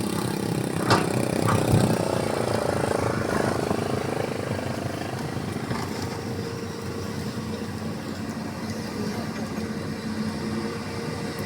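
Hitachi excavator's diesel engine running steadily at work. A couple of sharp knocks come about a second in, and the engine note falls over the next few seconds.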